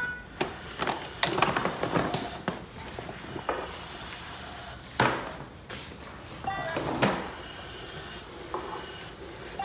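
Plastic ride-on toy airplane knocking and rattling as it is pushed along, in scattered knocks and bumps, the sharpest about five and seven seconds in.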